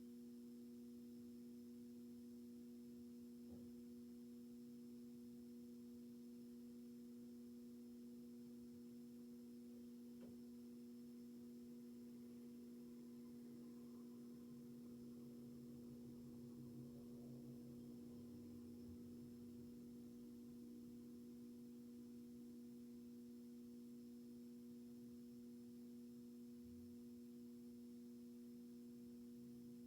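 Near silence: a faint steady hum of a few held low tones, unchanging throughout.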